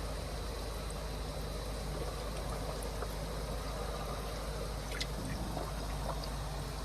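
Steady trickling, bubbling water from an aerated koi fry tank, with a few faint small clicks.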